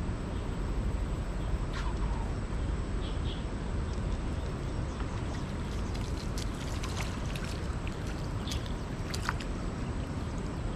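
A rain-swollen mountain stream rushing steadily, with a few short high chirps over it.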